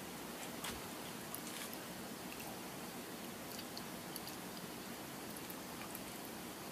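Quiet room tone: a steady faint hiss with scattered small, short clicks.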